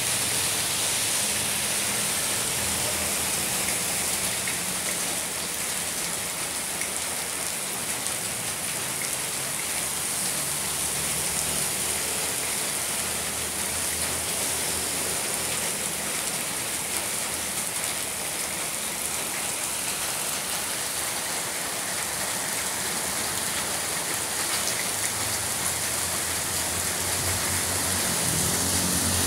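Heavy rain pouring onto a wet road and brick paving, a steady hiss without a break.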